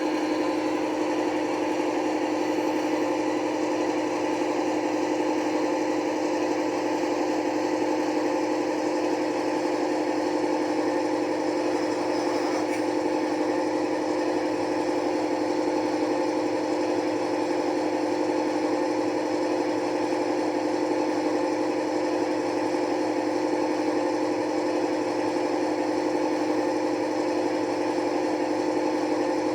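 Sound decoder in a model Class 55 Deltic diesel locomotive playing its engine running steadily through the model's small onboard speaker: an even drone with two strong held tones that do not change in pitch.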